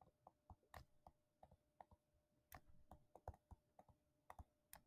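Faint, irregular clicks and taps of a stylus against a tablet screen while handwriting, otherwise near silence.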